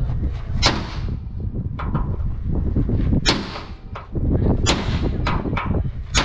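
Sharp metal bangs at irregular intervals, about half a dozen, over a steady low rumble: heavy blows on the steel of a truck chassis frame during repair work.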